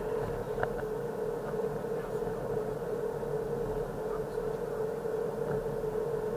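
Steady engine and tyre noise of a car driving at road speed, heard from inside the cabin, with a constant drone-like tone and a few faint ticks.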